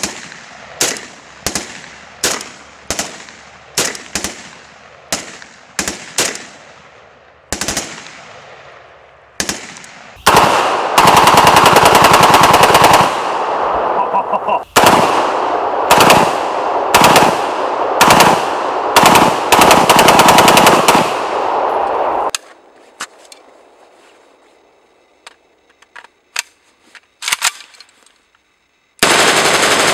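AKS-74U carbine (5.45×39 mm) shooting. First comes a string of about a dozen single shots, spaced well under a second apart. Then come long full-auto bursts with short breaks between them. After a quieter spell with a few faint shots, full-auto fire starts again near the end.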